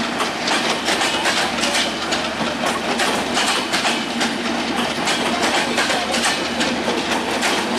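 Bangladesh Railway intercity passenger coaches rolling past at speed, their wheels clacking over the rail joints in a quick, steady run of clicks over the rumble of the train.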